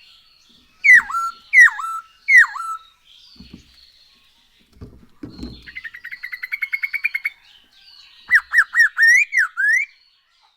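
Masked laughingthrush (poksay hongkong) singing loudly. It gives three swooping whistles, then a fast trill of about a dozen notes a second, then a run of quick swooping notes near the end.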